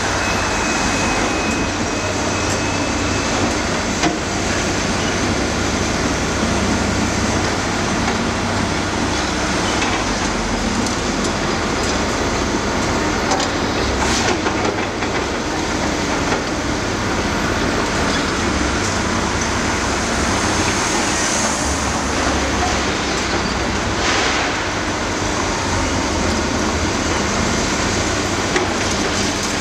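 Caterpillar 323D hydraulic excavators' diesel engines running steadily while their buckets dig into and shift broken concrete rubble, with occasional sharp knocks of concrete against steel.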